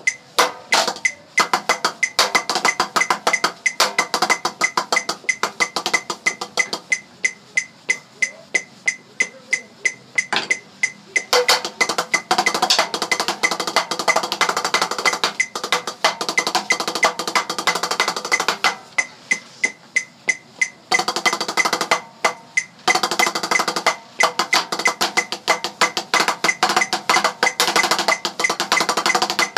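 Music carried by a fast, dense run of sharp percussive clicks, like wood-block hits, over sustained tones.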